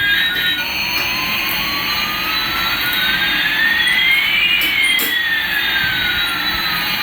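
A jet-engine sound effect: a steady jet rush and hiss with two whining tones, one rising and one falling, that cross about midway.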